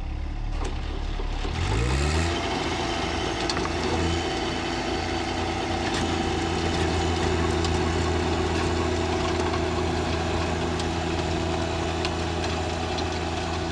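John Deere 1025R compact tractor's three-cylinder diesel engine running under load, driving a King Kutter rear rotary tiller through garden soil. The engine note rises about two seconds in, then holds steady.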